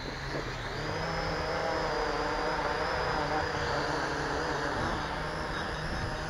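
Small quadcopter drone's electric motors and propellers running, a steady whine that rises in pitch and level about a second in and then holds. Its sound is gentle and reasonable, not harsh.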